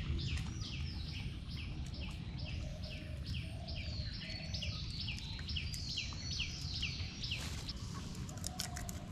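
A bird calling a rapid, regular series of high, downward-slurred notes, about three a second, over a steady low rumble. The calls stop about seven seconds in, and a few sharp clicks follow near the end.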